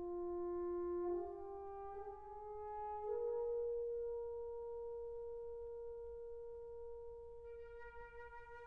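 Slow instrumental background music: a brass line steps up through a few notes, then holds one long note, and more instruments come in near the end.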